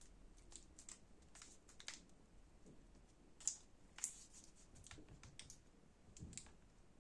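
Faint, scattered small clicks and taps of laptop parts being handled and fitted, with two sharper clicks about three and a half and four seconds in.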